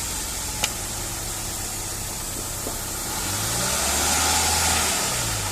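Hyundai Grand i10 petrol engine running with a freshly fitted used manual gearbox, test-run in place. It idles steadily, revs up about three seconds in and settles back near the end, with one sharp click about half a second in.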